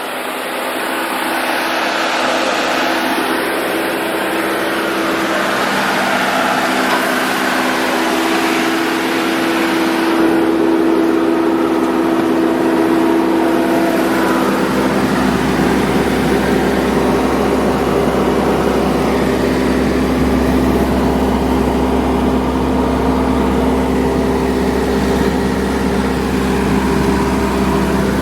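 Bobcat T190 turbo skid steer's diesel engine running steadily, getting louder over the first couple of seconds and then holding an even pitch.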